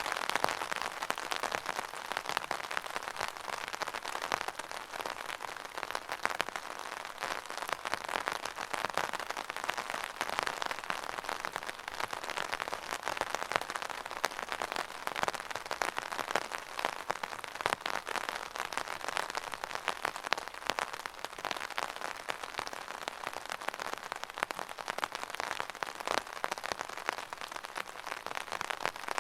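Steady rain falling and pattering on a surface, a dense hiss full of fine drop ticks.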